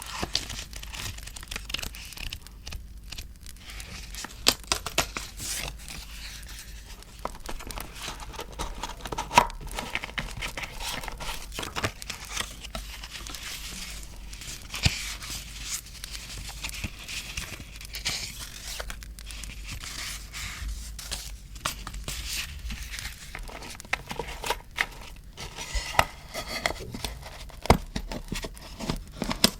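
Paper being handled, torn and crinkled for scrapbook journaling: steady rustling broken by many sharp, irregular crackles and snaps.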